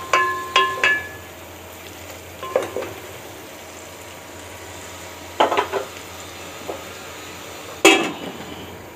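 Metal spoon stirring and scraping stir-fried chicken, egg and vegetables in a metal cooking pot, clanking against the pot so that it rings. Several quick ringing clanks come in the first second, then single knocks every couple of seconds, the loudest near the end, over a low steady hiss.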